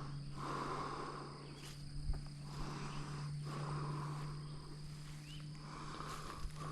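A man breathing hard and heavily from exertion, slow deep breaths about every two seconds, over a steady low hum.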